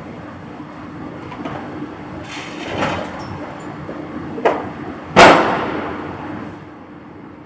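Heavy steel parts clanking against each other: a clatter about two to three seconds in, a sharp clank about four and a half seconds in, then the loudest, a heavy metallic bang about five seconds in that rings and echoes for over a second. A steady machinery hum runs underneath.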